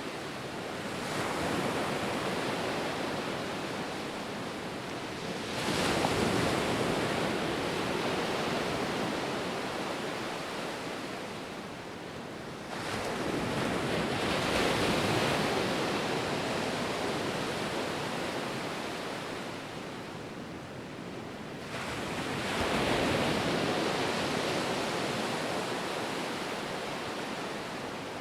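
Ocean surf: a continuous rush of waves that swells and fades, with four surges several seconds apart.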